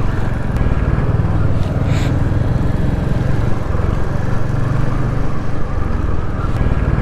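Royal Enfield Hunter 350's single-cylinder engine running steadily as the motorcycle rides along, with road and wind noise.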